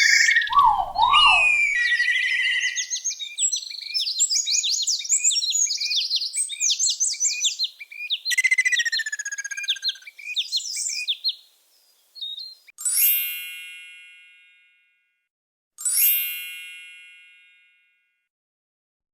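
A songbird singing a fast, varied song of chirps and trills, which stops about two-thirds of the way through. Then two bell-like dings about three seconds apart, each ringing out and fading over about two seconds.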